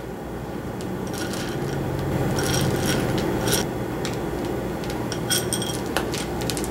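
White chocolate chips being picked out of a small glass bowl and dropped onto a cheesecake: scattered light clinks and clicks, several with a brief glassy ring, over a steady low hum.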